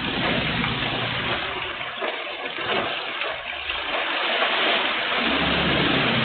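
Heavy rain falling in gusty wind, a steady dense rushing hiss, heard through a CCTV camera's microphone.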